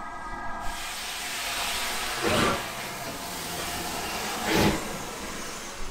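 LMS Black Five steam locomotive 5428 passing slowly alongside, with a steady hiss of escaping steam that starts about half a second in. Two louder bursts of steam come about two seconds apart.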